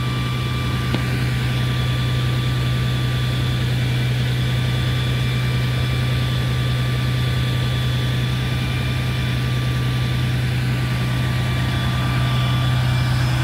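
Fire engine's diesel engine running steadily at standstill, an even low hum with a thin steady whine above it that fades out near the end.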